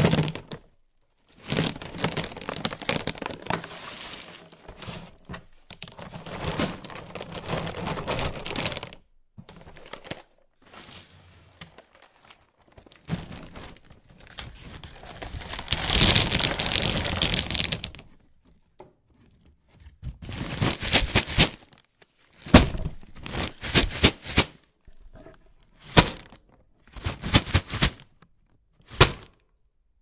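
A paper bag of nuts being handled: the paper crinkles and rustles, with the nuts knocking inside. It comes in spells of a few seconds at first, then turns into short, separate crackles and clicks with pauses between them.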